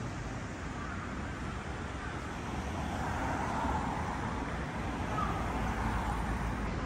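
Road traffic going by: a steady rush of car tyres and engines, growing a little louder after about three seconds.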